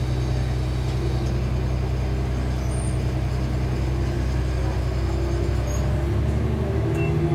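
KiHa 11 diesel railcar's engine running steadily with a low hum as the railcar moves along the track. The engine note shifts to a higher pitch about six seconds in.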